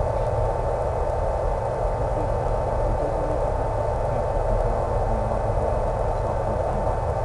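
Steady, unchanging hiss like radio static, with a constant hum tone running through it.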